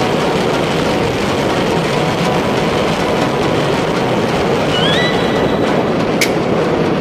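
Steady, loud rushing rumble with a brief rising squeak about five seconds in and a sharp click about a second later.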